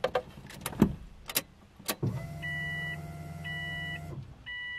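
Ignition key clicking, then a steady electric hum for about two seconds as the DeatschWerks DW300 in-tank fuel pump primes at key-on. A dashboard warning chime beeps three times, about once a second.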